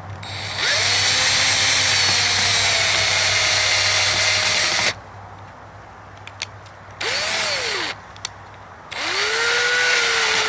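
Black & Decker cordless drill driving a screw into a Minn Kota trolling motor's head housing in three runs: a long run of about four seconds, a short burst, then a final run. In each run the motor whine rises and then sags under load, and the last run seats the screw tight.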